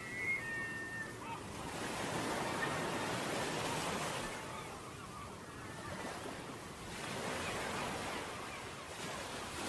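Ocean surf washing onto a beach, the noise of the waves swelling and ebbing every few seconds. A brief faint high chirp sounds near the start.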